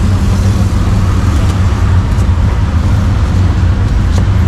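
Steady low rumble of road traffic, with a few faint taps of a cleaver on a wooden chopping block.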